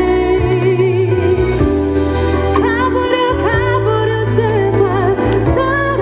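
A woman singing live into a handheld microphone over instrumental accompaniment, with long held notes that waver in vibrato.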